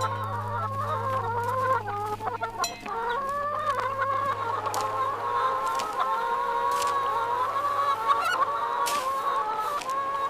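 Hens clucking continuously, several overlapping voices, with a few sharp clicks scattered through.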